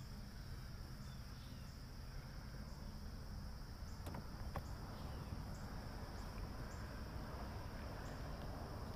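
Faint, steady chorus of crickets, over a low rumble, with two small clicks a little past four seconds in.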